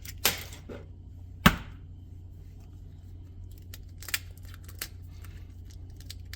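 Eggs being cracked and broken into a bowl. A sharp crack comes about one and a half seconds in, with lighter clicks and taps of shell before and after it, over a steady low hum.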